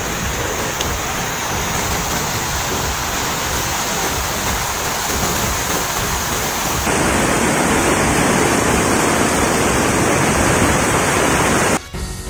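Muddy flash-flood water rushing with a steady, loud noise. The sound shifts and grows a little louder about seven seconds in, then drops away near the end.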